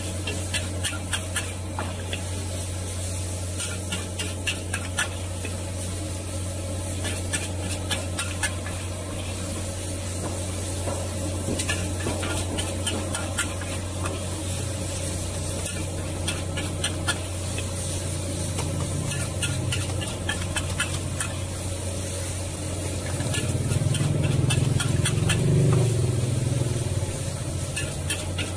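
Metal spatula and ladle scraping and clanking against a steel wok as rice vermicelli and bean sprouts are stir-fried, with a sizzle underneath and a steady low hum. A louder low rumble swells for a few seconds near the end.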